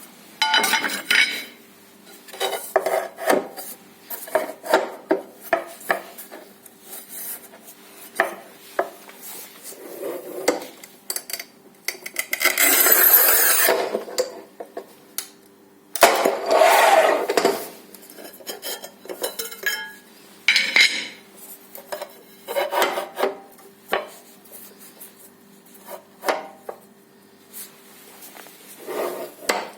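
Matrix 900 mm manual tile cutter being worked on a porcelain stoneware tile: scattered clicks and knocks of handling, and twice near the middle a longer rasping scrape lasting about two seconds.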